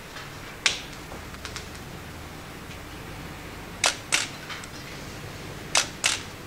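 Camera shutter clicks from a lab camera mounted over a microscope: a single click about a second in, then two quick pairs of clicks, the second pair near the end.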